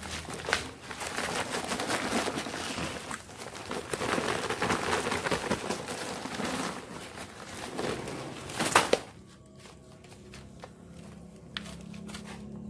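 Soil pouring out of a plastic sack into a pot, with the sack crinkling and rustling. There is one sharp, loud rustle about nine seconds in, then it goes quieter.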